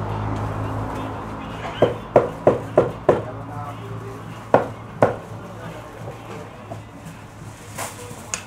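Knife chopping through a homemade jerk sausage onto a wooden chopping block: five quick chops about a third of a second apart, then two more about half a second apart.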